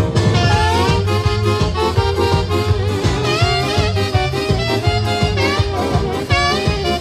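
Two saxophones playing a fast melody together, with quick runs and wavering held notes, over a band backing with a steady bass beat.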